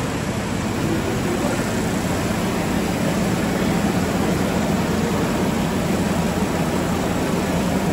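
Steady mechanical drone of tobacco-processing factory machinery running, an even hum strongest in the low range.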